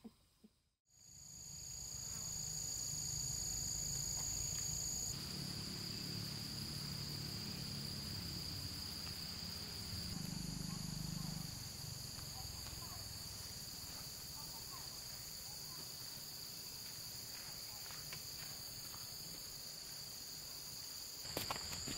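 Insects trilling steadily, several high-pitched tones layered over one another, fading in after a moment of silence near the start. One of the tones drops out about five seconds in.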